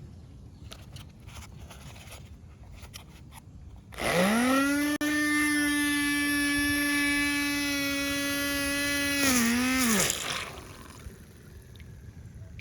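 Small DC motor of a home-made electric boat switched on: it spins up quickly to a steady high whine, runs for about five seconds, wavers briefly, then winds down and stops.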